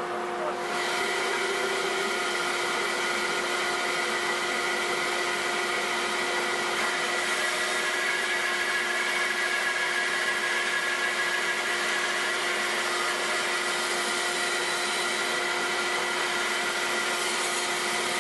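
Delta 14-inch bandsaw running steadily with a constant motor hum while its blade cuts through a piece of teak. The hiss of the cut comes in about a second in and holds steady.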